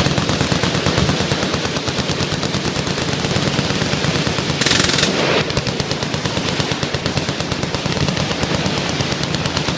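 Many machine guns firing at once in continuous full-auto fire, the shots running together densely throughout. About five seconds in there is a brief, louder burst of hissing noise.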